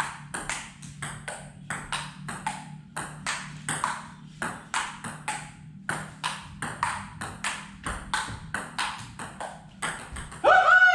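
Table tennis rally: the celluloid ball clicks back and forth between paddles and the table top in quick, even alternation, about three clicks a second. Near the end comes a short, loud shout.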